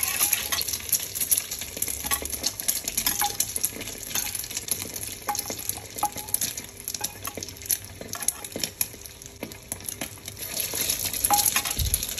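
Egg-coated potato bergedel (croquettes) deep-frying in hot oil in a wok: a steady sizzle full of small crackling pops.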